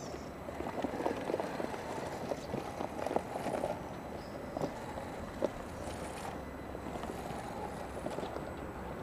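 RC rock crawler with twin motor-on-axle Novak Fifty Five motors crawling over rock: a steady drivetrain whirr under irregular clicks, knocks and crunches as the tyres scrabble on the stone, busiest in the first few seconds.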